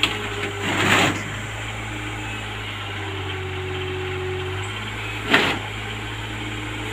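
Tractor-mounted backhoe's engine running steadily, its note growing heavier for a second or two midway. Two short bursts of noise come about a second in and again near the end.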